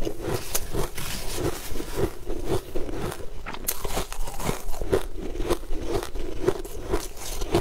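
Close-up crunching and chewing of frozen shaved ice, with even crunches about twice a second.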